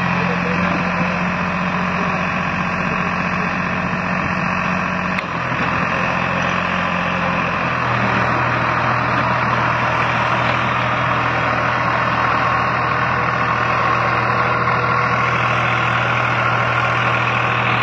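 New Holland 3600-2 tractor's three-cylinder diesel engine running steadily, its note dropping to a lower engine speed about eight seconds in. A single sharp click about five seconds in.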